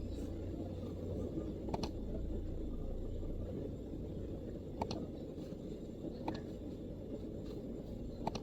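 A few isolated MacBook keyboard keystrokes, four single clicks spaced well over a second apart, over a steady low background rumble.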